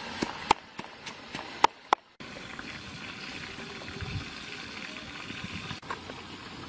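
Wooden pestle pounding red chilies and garlic in a wooden mortar: about six sharp knocks in the first two seconds. After that comes a steady hiss.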